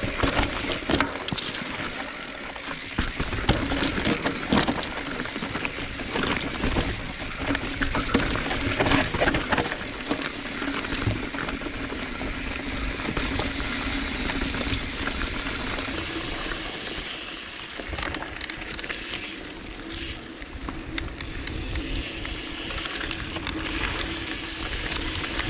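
Mountain bike rolling fast down a dry dirt trail: tyres rumbling over loose dirt and gravel with frequent short clatters as the bike jolts over bumps, and wind rushing over the camera's microphone.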